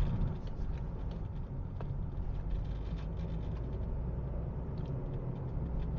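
Steady low rumble of engine and road noise inside a moving car's cabin, with faint scattered ticks.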